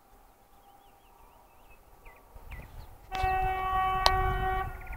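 TEP70BS diesel locomotive's horn sounding one chord-like blast of about a second and a half, starting about three seconds in, over the low rumble of the arriving train, which grows louder just before it.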